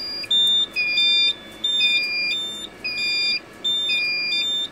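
Electronic alarm sounder beeping in a repeating pattern of alternating high and low tones, about one cycle a second.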